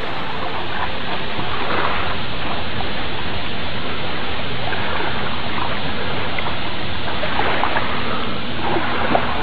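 Steady wash of water, like gentle surf on a beach, with no music over it.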